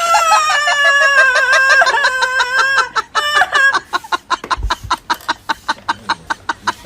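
An animal call: one long wavering call falling slowly in pitch, then a quick run of short sharp calls, about five a second.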